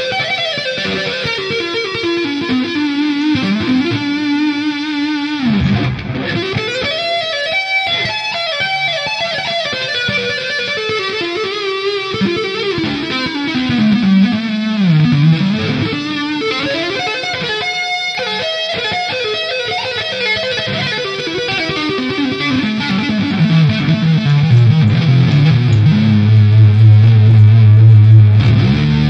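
Ibanez Radius 540R electric guitar played with two-hand tapping through the Scuffham S-Gear amp simulator: fast runs of notes sweeping up and down the neck. Near the end it settles into low held notes that grow louder.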